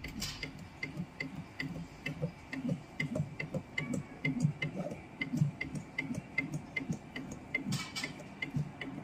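Automatic soldering machine at work: an even ticking about twice a second over an uneven low mechanical hum as the head moves, with a brief hiss near the end.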